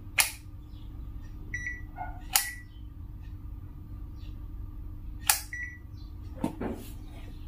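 Handheld digital multimeter being operated by hand: several sharp clicks from its switch and buttons, and three short high beeps.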